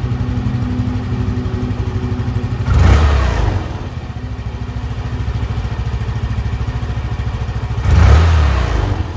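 Yamaha Mio i 125 scooter's fuel-injected single-cylinder engine idling steadily, revved briefly twice, about three and eight seconds in, each time falling back to idle within a second. The idle has been set with a soft spring fitted as a throttle stopper, which the owner finds gives the right idle and throttle-return delay.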